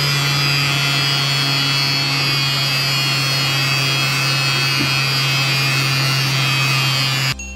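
Small electric motor of a homemade plastic-bottle vacuum cleaner running steadily with a buzzing hum while it sucks up sawdust; it cuts off abruptly near the end.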